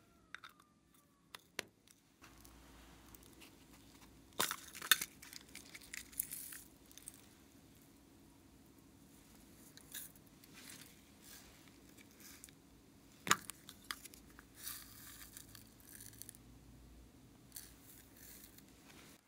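Small plastic pots of glitter and sequins being opened and tipped out onto white slime: a few sharp plastic clicks and short rustling pours of loose glitter.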